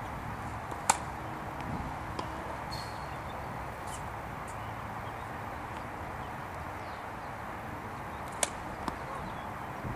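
Tennis racket striking the ball on a serve: a sharp pop about a second in and another near the end, over a steady background hiss.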